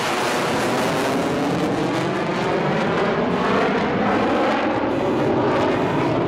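Mitsubishi F-15J fighter's twin afterburning turbofan jet engines running loud and steady as it flies display maneuvers overhead, with slow rising and falling sweeps in the noise.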